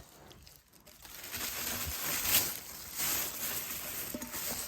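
Packing material rustling and crinkling as hands dig through a box, starting about a second in and going on in uneven spells.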